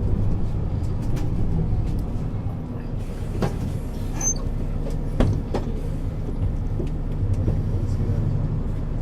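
Mercedes-Benz Citaro C2 city bus engine running steadily while the bus is under way, a low drone. There are a couple of sharp knocks or rattles, about three and a half and five seconds in.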